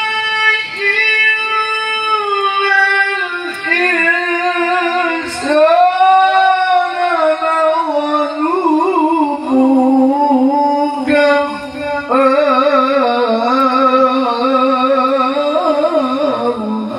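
A man's voice reciting the Quran in the melodic tilawah style into a microphone, holding long ornamented notes with a wavering vibrato. There are short breaths between phrases, the clearest about twelve seconds in.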